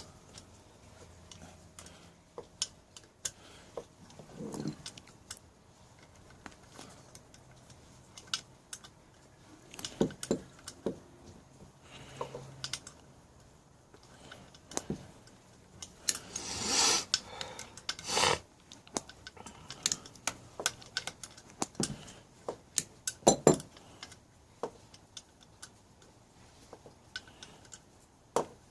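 Hand tools and metal engine parts clinking and clicking at irregular intervals during pocket bike engine disassembly, with a few louder clatters along the way.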